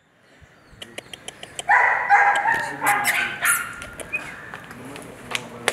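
Yorkshire terrier yapping in a quick run of short, high-pitched barks about two seconds in, among a string of sharp clicks and taps.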